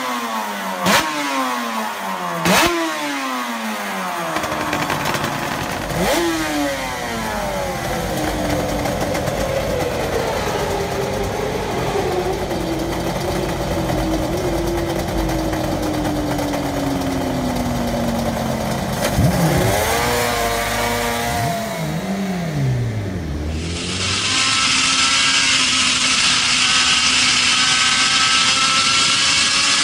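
Suter MMX 500's two-stroke V4 racing engine revved in sharp blips that fall away, then running with its pitch sinking slowly and revved up and down again. Near the end it runs steadily at high revs on the move, heard from on board.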